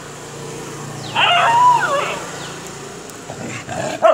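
A dog whining: a loud, high-pitched whine with a wavering pitch about a second in, lasting about a second, then a shorter whine near the end.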